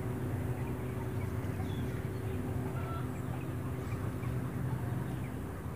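Steady low motor hum, with a few faint bird chirps scattered over it.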